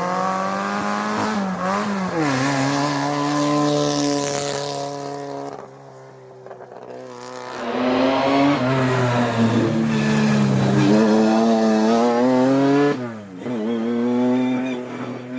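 Historic racing car engine revving hard as the car accelerates uphill, its pitch climbing and then dropping at each gear change. Near the middle it fades briefly, then an engine revs hard again and shifts once more near the end.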